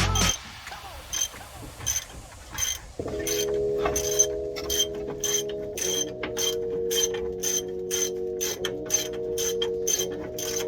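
Metal ratchet wrench clicking in a steady run, about three sharp clicks a second. Held music chords enter about three seconds in.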